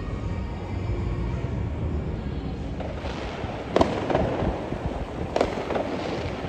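Fourth of July fireworks going off: two sharp bangs about a second and a half apart, each followed by crackling, over a steady low rumble.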